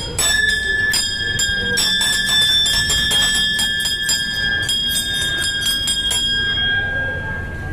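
Brass temple bell rung by hand, its clapper struck over and over, about three times a second, with a bright ringing tone. The strokes stop near the end and the ring fades out.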